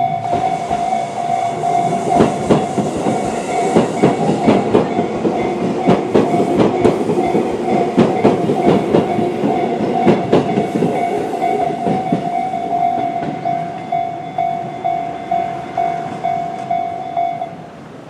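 A Japanese level-crossing electronic warning bell, of the Tobu 'sound C' type, rings steadily. Over it, a Tobu 20400-series electric train passes with its wheels clacking over the rail joints for about twelve seconds. Once the train has gone, the bell's even strokes of about two a second stand out alone, and the bell stops shortly before the end.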